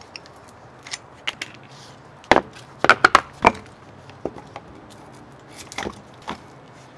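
Vinyl-covered weight plates knocking against each other and the dumbbell bar as they are slid on. The knocks are sharp and irregular, with a loud cluster about two to three and a half seconds in and a couple more near the end.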